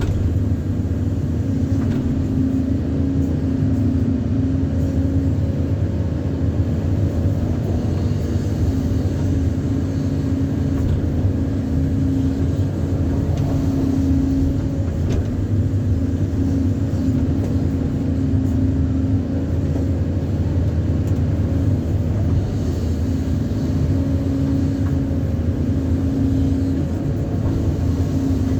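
Excavator's diesel engine running steadily, a constant drone with a steady hum and no clear changes in speed.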